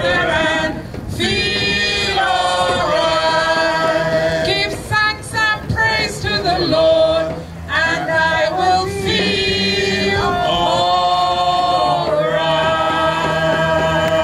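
A small mixed group of men and women singing together into microphones, with long held notes.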